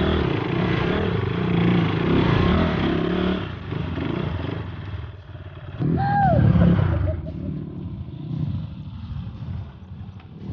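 Off-road motorcycle engine running steadily for the first few seconds, then easing off, with a short louder burst of engine about six seconds in that carries a brief falling tone.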